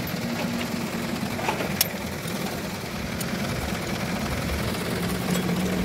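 A steady engine-like hum, low and even, with one sharp click about two seconds in.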